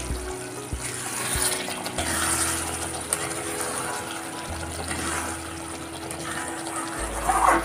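Thick curry simmering in a steel kadai while a metal spatula stirs it, scraping and splashing through the sauce, with a louder scrape near the end.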